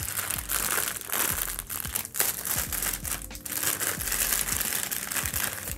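Packaging crinkling and rustling in the hands, with many small crackles, as items from the camera box are handled and put away.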